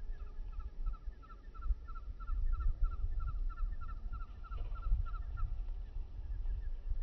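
A strange high, pulsing call heard from the sky: short double chirps repeating about three times a second, stopping about five and a half seconds in, over a low rumble.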